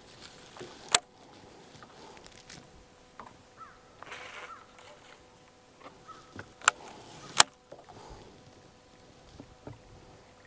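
Three sharp clicks: one about a second in and two close together near seven seconds, with a few fainter ticks and a faint steady hum beneath.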